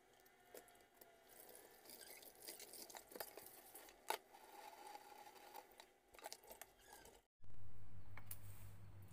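Water sloshing and splashing as a whole carp is washed by hand in a plastic basin and rinsed at a stainless steel sink, with light wet knocks and clicks of handling. Near the end the sound cuts out briefly, then a low steady hum starts loud and slowly fades.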